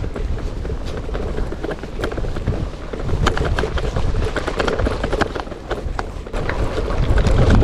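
Gravel bike riding along an off-road trail: tyres crunching over gravel and the bike rattling with many small, quick clicks over a low rumble.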